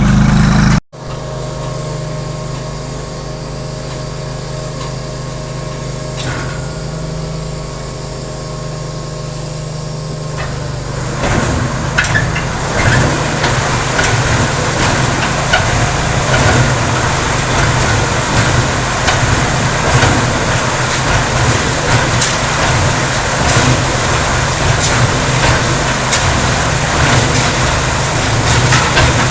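Motor of a homemade concrete mixer running steadily. About eleven seconds in it gets louder and rougher, with a rattling clatter over the hum.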